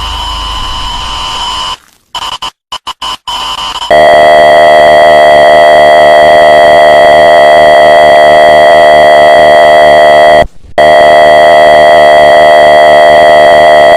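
Harsh, distorted electronic emergency-alert tone at full volume, a steady buzzing sound made of many pitches at once. It starts about four seconds in, after a low drone stutters and cuts out several times, and drops out briefly about ten seconds in.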